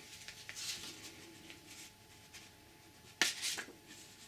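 Paper rustling as a printed warranty booklet is handled and opened, with a sharp crackle of paper about three seconds in and a second one just after.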